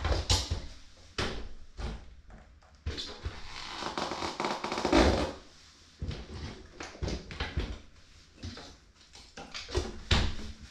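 Clicks, knocks and rattles of a Brompton folding bicycle's steel frame, hinges and wheels being folded and handled against a Burley Travoy cargo trailer, with a longer rubbing, scraping stretch about three to five seconds in.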